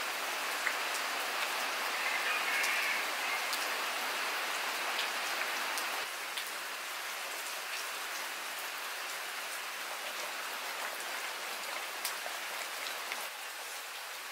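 Steady rain falling, with scattered sharp drips and small clicks through it; the patter drops a little in level about six seconds in.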